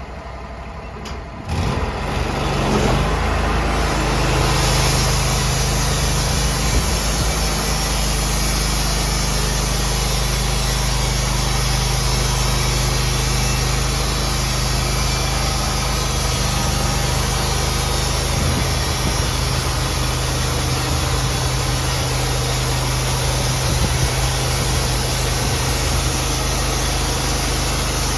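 Sawmill engine running at a steady speed, coming up loud about a second and a half in and holding an even pitch.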